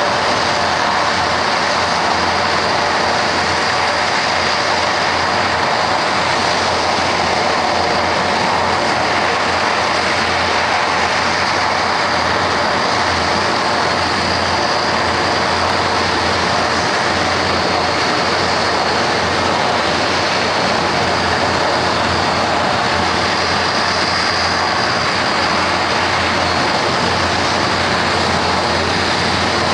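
Jet aircraft engines running steadily: a constant rumbling roar with a faint high whine above it, unchanging throughout.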